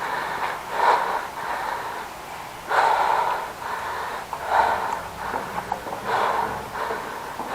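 A person's heavy breathing, one breath about every one and a half to two seconds.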